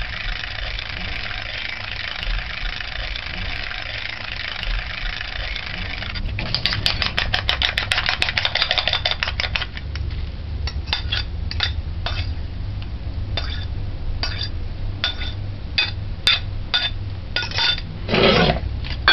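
Fork beating egg against a ceramic plate: a fast run of clicks for a few seconds, then scattered clinks of the fork on the plate as the egg is scraped out into a glass mixing bowl. A low steady hum sits underneath.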